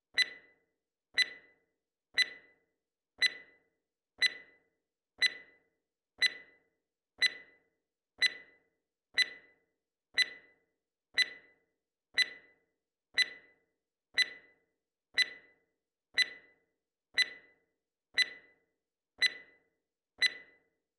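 Countdown timer sound effect: a sharp, clock-like tick once every second, each with a brief ringing tail, twenty-one ticks in all.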